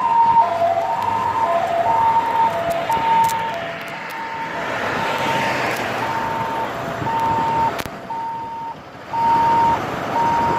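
Two-tone siren alternating between a high and a low note about twice a second, then going on as repeated short high beeps, over road noise.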